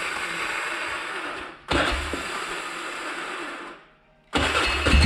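Can-Am Outlander ATV's electric starter cranking in three whirring bursts of about two seconds each, with short pauses between them. The engine catches on the third try, near the end.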